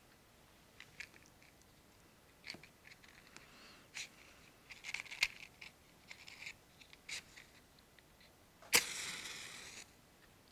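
Small clicks and rustles as a cigarette pack and cigarette are handled, then a match struck with a sharp scrape about nine seconds in, flaring with a hiss that fades out after about a second.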